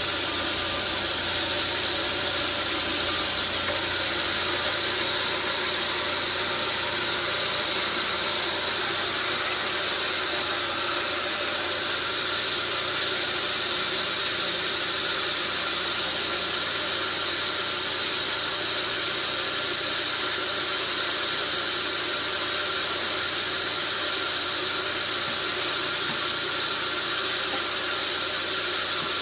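Sawmill saw running steadily, most likely cutting through a hardwood log: a continuous high hiss with faint steady whining tones and no let-up.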